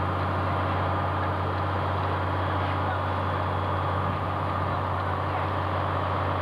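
Fire apparatus engine running steadily at the fireground, a continuous low drone under an even hiss.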